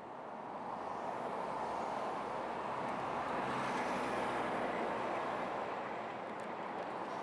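Passing road traffic: a steady rush of vehicle noise that swells over the first few seconds and eases slightly near the end.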